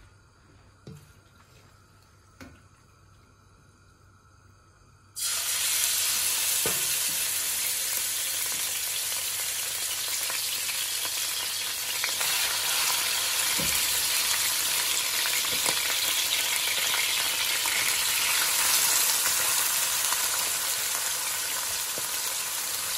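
Bite-size pieces of raw beef hitting hot oil in an aluminium caldero and sizzling as they fry. The sizzle starts suddenly about five seconds in, after near silence, and keeps on steadily as more meat is spooned in.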